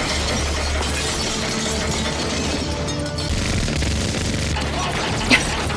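Movie soundtrack of a minigun firing continuously into police cars, which shatter and blow apart, under a dramatic music score.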